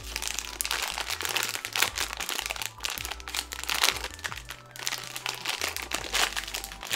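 Foil blind-box bag crinkling in the hands as it is opened, a dense run of irregular crackles.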